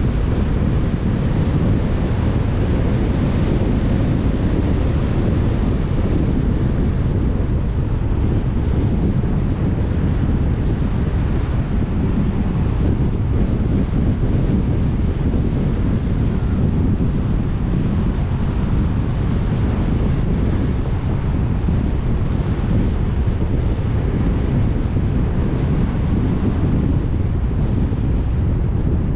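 Steady road and wind noise from a car driving along, with wind rumbling on the microphone.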